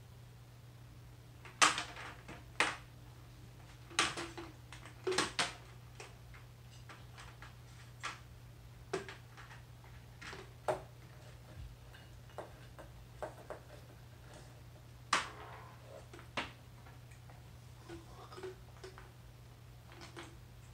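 White candy-melt wafers clicking and knocking as they are dropped into a plastic squeeze bottle, in irregular clicks with the loudest in the first few seconds, over a steady low hum.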